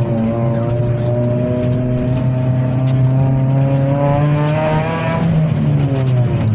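Chevrolet Celta 1.0 VHC-E four-cylinder engine breathing through an open cold-air intake, a 4-into-1 header and a straight-through exhaust with a JK muffler, heard from inside the cabin under load. The revs climb slowly for about five seconds, then drop away.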